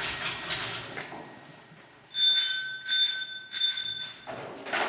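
A telephone bell sound effect rings three times in short bursts, following a fading noisy clatter at the start.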